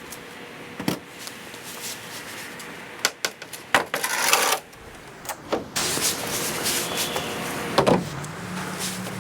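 Plastic shed parts knocking and clattering as they are handled, with a scraping rustle about four seconds in. About a second before the end, a cordless impact driver's motor starts to whir steadily.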